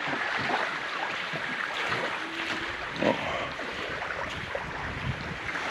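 Small lagoon waves lapping steadily on a sandy beach, with wind blowing over the microphone.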